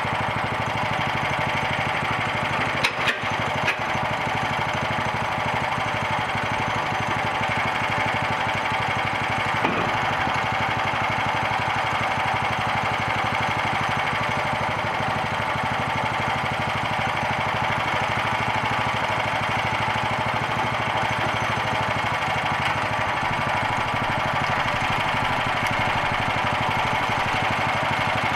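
Small gasoline engine of a homemade bandsaw mill running steadily at an even pitch, with a couple of sharp knocks about three seconds in.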